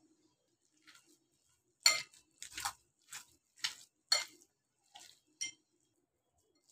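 Bangles on a hand kneading minced chicken clink against a glass mixing bowl: about seven sharp, ringing clinks at an uneven pace, starting about two seconds in, the first the loudest.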